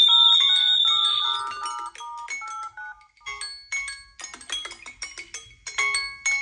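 Several Samsung Galaxy phones sounding their electronic marimba- and bell-like ringtone melodies at once, the notes of the different tunes overlapping in a jumble. A held high note fades out about a second and a half in.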